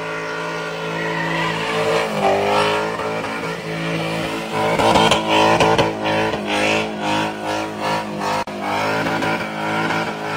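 An LS1 V8 in a Holden VP Commodore is held at high revs during a tyre-smoking burnout, with the rear tyres spinning on the bitumen. About two seconds in the revs drop and climb back, and from about halfway the engine note pulses several times a second.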